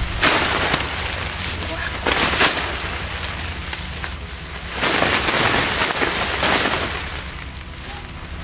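Wet nylon tent rainfly rustling and swishing as it is pulled off the tent, in several surges: just after the start, around two seconds in, and a longer one from about five to six and a half seconds.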